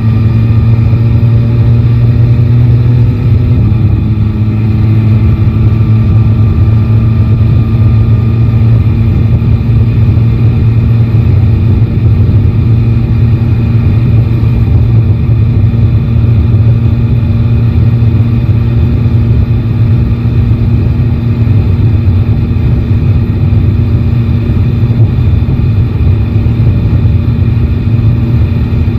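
Three-cylinder motorcycle engine running steadily at cruising speed, heard from the rider's seat with a constant rush of wind and road noise. The engine note steps down slightly about three and a half seconds in, then holds steady.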